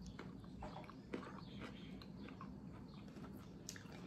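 Faint, irregular crunching and chewing of raw yellow squash dipped in hummus.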